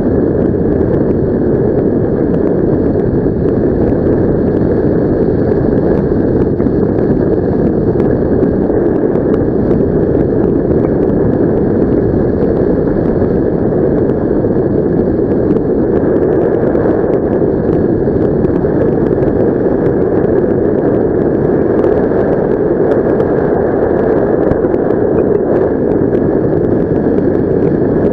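Steady rushing airflow on a helmet-mounted camera's microphone during a paraglider flight, loud and unbroken, with a faint whistle-like band above it.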